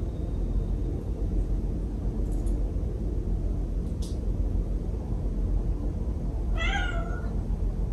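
Persian cat gives one short meow near the end, over a steady low background rumble.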